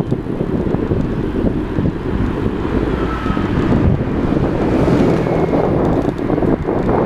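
Wind buffeting a bicycle-mounted GoPro Hero3's microphone as a steady loud rumble while riding, with city road traffic underneath.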